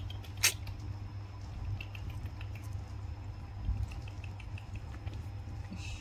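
Small taps, clicks and rustles as baby macaques handle a doll and plastic toys on a blanket, with one sharp knock about half a second in, over a low steady hum.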